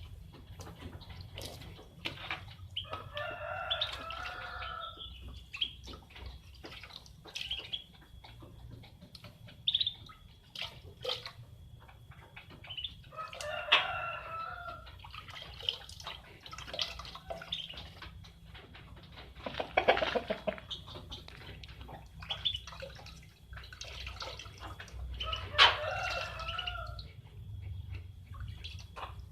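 A chicken calls three times, each call about two seconds long, with scattered drips and small splashes of water between the calls.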